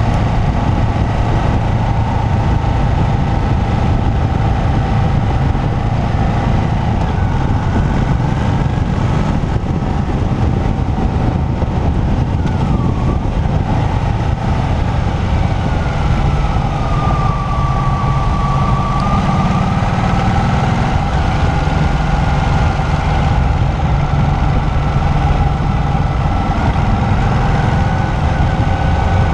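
Motorcycle engine running at steady road speed, its pitch drifting gently up and down, under a constant rush of wind and road noise from riding on a wet road.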